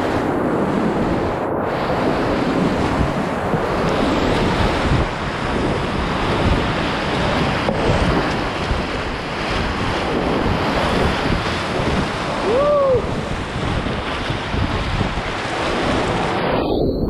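Whitewater rapids rushing and crashing around a kayak, with paddle strokes and splashing water hitting the microphone. A short pitched cry rises and falls about twelve and a half seconds in, and near the end the sound turns muffled as water washes over the microphone.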